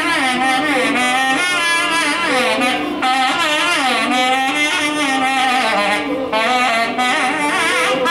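Nadaswaram, the South Indian double-reed oboe, playing a Carnatic melody with constantly sliding, ornamented notes over a steady drone.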